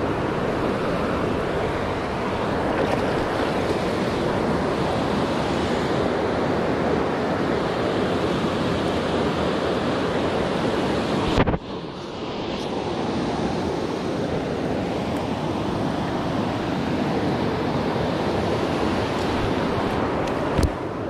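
Steady rush of river water over rocks from a fast riffle close by. There is a single sharp knock about halfway through and another near the end.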